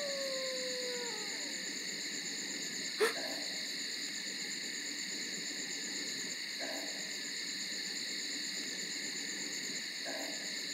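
Night ambience of crickets and other insects trilling steadily. A short falling whine comes in the first second and a half, and a single sharp snap about three seconds in.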